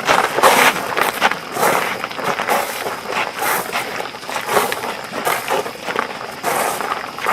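Irregular shuffling and scuffing of many feet, like a group moving off together.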